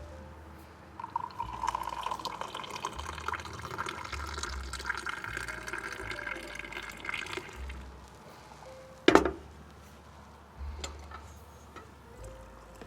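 Hot mint tea poured from a teapot into a glass, the pitch of the stream rising as the glass fills. About nine seconds in there is a single sharp knock, the loudest sound, as of the pot or glass being set down.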